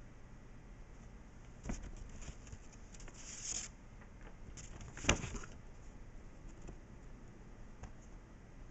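Faint rustling and brushing of hands and clothing during signing, with a short hiss around three and a half seconds in and one sharp tap or slap a little after five seconds.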